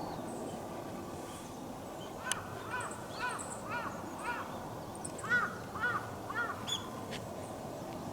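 A bird calling in two runs of short, evenly repeated calls, about two a second, over a steady background hiss.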